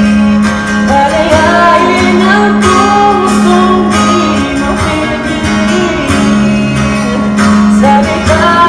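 Music: a song with singing over guitar.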